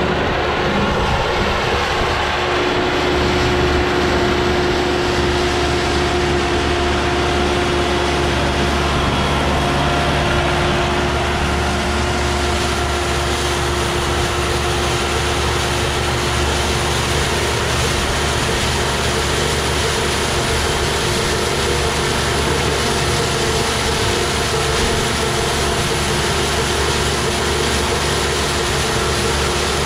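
Başak 2075 Plus tractor running steadily under load while powering an Elibol small square baler picking up straw: a continuous engine drone mixed with the baler's working noise. The baler's noise grows louder and brighter about a third of the way in.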